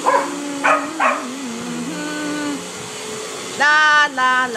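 Vacuum cleaner running with a steady hum while a dog barks three quick times in the first second or so. About three and a half seconds in, a loud held high note lasting about half a second cuts in, breaks off, and comes back at the end.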